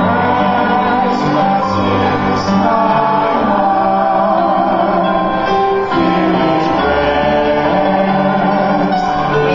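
A man and a woman singing a responsorial psalm together into microphones, over steady instrumental accompaniment.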